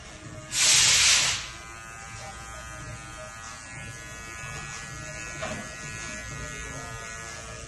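Electric hair clippers buzzing steadily. A brief, loud hiss comes about half a second in and lasts about a second.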